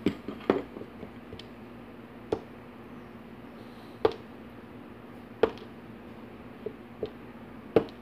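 Small sharp clicks and taps of steel tweezers and brass lock pins against a plastic pin tray and the lock plug, about eight at irregular intervals, as pins are picked out one by one.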